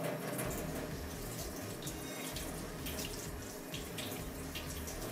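Water running from a tap into a stainless steel sink, splashing unevenly off a sheet of paper held and turned under the stream to wet it on both sides.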